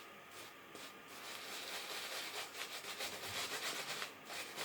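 Shaving brush swirling shaving soap into a lather: a faint, rapid scrubbing of quick strokes that gets denser about a second in.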